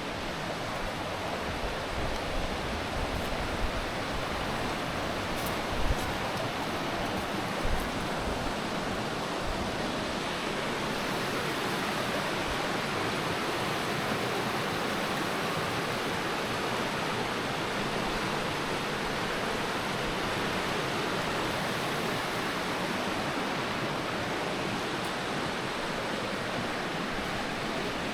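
Steady rush of fast-flowing river water, like rapids or a small waterfall. Two brief low thumps come about six and eight seconds in.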